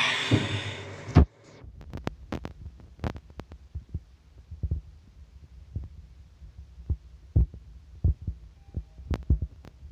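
Passenger elevator car running with a steady low hum, with scattered light knocks throughout. A short rushing noise at the start ends in a sharp knock about a second in.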